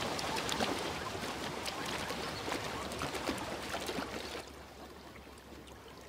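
Water splashing and sloshing with many small sharp splashes as a herd of zebras wade and drink in a shallow, muddy waterhole. About four and a half seconds in it drops away to a quieter, duller background.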